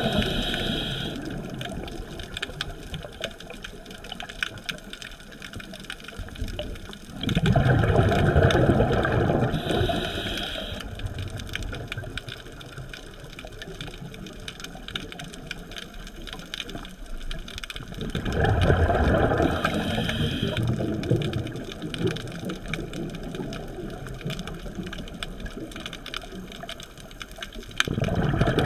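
A scuba diver's regulator exhaling underwater: a loud burst of bubbling about every ten seconds, three times, each lasting a few seconds. Between the breaths there is a faint, steady crackling of tiny clicks.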